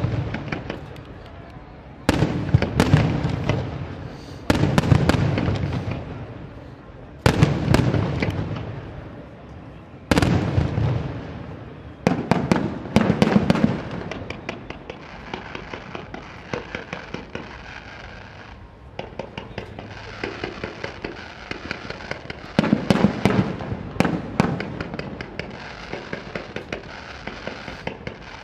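A fireworks display: loud shell bursts about every two to three seconds, each trailing off in a rumble and crackle. In the middle comes a stretch of fainter rapid crackling, then more loud bursts near the end.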